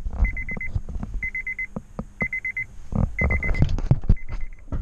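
Car warning chime beeping in short bursts of about five quick high beeps, repeating about once a second, over irregular knocks and clunks of metal parts being worked on.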